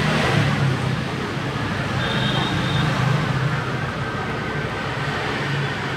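Steady low background rumble with a hiss above it, with no distinct sound events.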